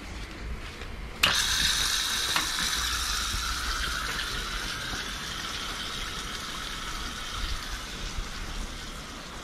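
Outdoor shower running: water spray hissing, starting suddenly with a click about a second in and slowly easing off a little.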